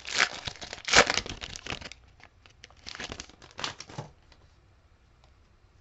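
Trading-card pack wrapper crinkling as it is torn open and the cards pulled out, in two spells of crackly noise over the first four seconds.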